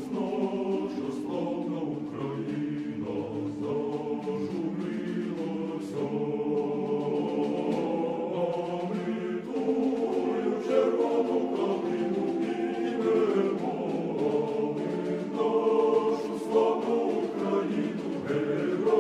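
A choir of many voices singing in harmony, holding chords that change every second or two.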